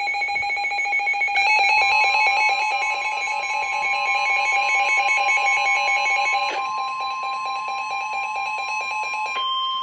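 Emergency weather alert tones: a weather radio's fast pulsing alarm sounds throughout, and about two seconds in the steady NOAA Weather Radio 1050 Hz warning alarm tone joins it, signalling that a new warning, a flash flood warning, is about to be read. Near the end the pulsing gives way to a single higher steady tone.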